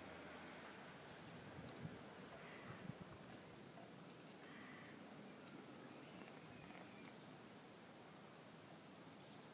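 A cricket chirping: short, high chirps in quick clusters, repeating irregularly.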